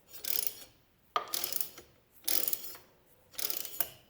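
Hand work on an ATV's front brake caliper while its Allen adjuster is tightened against the disc: a short, sharp mechanical ratcheting stroke about once a second, four times, each dying away quickly.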